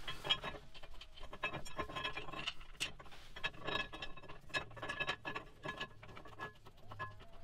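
Steel bolt being offered up and threaded by hand into a rear brake caliper mounting bracket: a run of small, irregular metallic clicks and scrapes, some with a brief ring.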